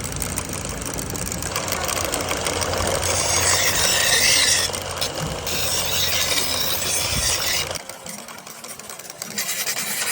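Metalworking machinery in a blacksmith's shop, running with a rapid mechanical rattle. A brighter hissing noise comes in during the middle, and there is an abrupt quieter stretch near the end.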